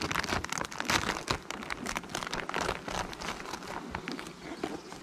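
Clear plastic hive cover sheet crinkling and crackling as it is peeled back off the top of the beehive's frames, densest in the first couple of seconds.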